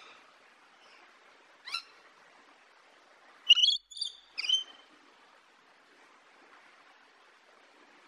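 Rainbow lorikeet calling: one short call about two seconds in, then three louder calls in quick succession about halfway through, over a faint steady hiss.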